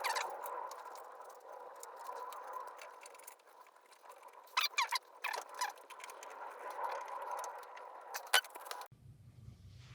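Small clicks and light rattles of a screwdriver and metal fittings as a replacement glass pane is fixed into a wood stove door, over a faint steady hiss. A cluster of clicks comes about halfway through and one sharp click near the end, just before the sound cuts off abruptly.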